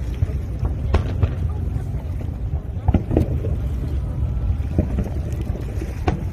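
Fireworks bursting: sharp bangs at irregular intervals, a second or two apart, over a steady low rumble.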